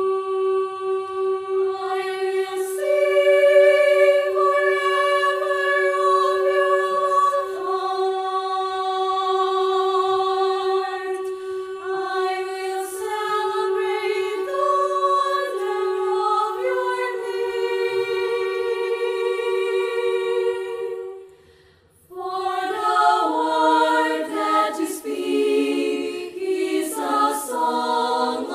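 Mixed choir of men and women singing a cappella in sustained chords, opening on a single held note that the other parts join about two seconds in. About three-quarters of the way through the voices stop briefly, then come back in together with a fuller, faster-moving chord.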